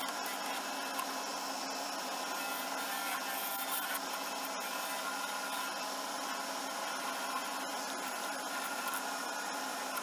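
Lathe running while a turning tool cuts a cast Alumilite resin pen blank: a steady motor hum under a continuous scraping, rubbing noise from the cut.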